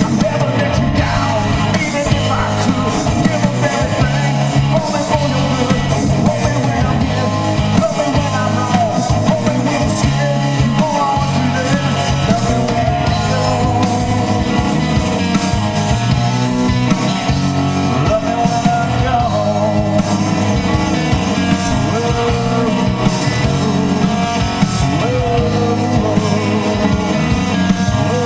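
Live rock band playing through stage amplification: electric guitars, bass guitar and drum kit, with a male lead singer.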